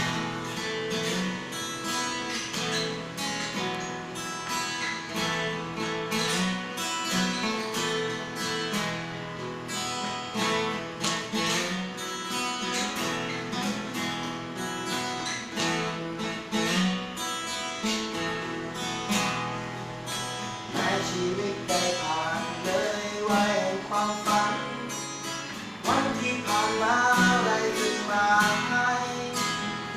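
Acoustic guitar playing a song's instrumental introduction, strummed and picked in a steady rhythm. A wavering higher melody line joins about twenty seconds in.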